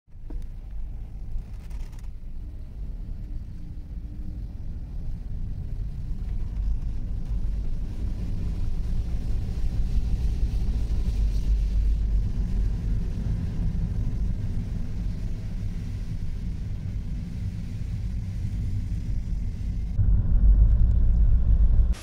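Car driving, a steady low rumble of engine and road noise that grows slowly louder and is loudest in the last two seconds.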